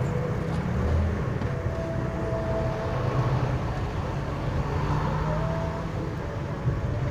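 Jeepney engine running steadily during a ride, heard from inside the vehicle, with a steady hiss of heavy rain over it.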